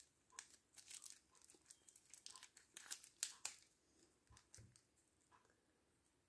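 Thin clear plastic wrap crinkling and crackling as it is peeled off a small plastic action figure. There is a quick run of sharp crackles for the first three seconds or so, then they thin out and fade to near quiet by about four and a half seconds in.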